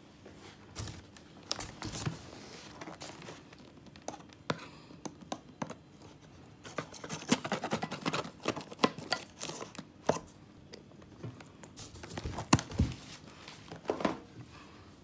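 Cardboard boxes and packing being handled and pulled out of a shipping carton: irregular scraping, rustling and tearing with sharp knocks, busiest about seven to ten seconds in, with two louder knocks near the end.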